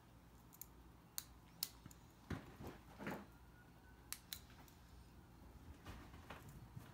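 Near silence broken by a few faint, sharp clicks from a small metal pen flashlight being switched and handled.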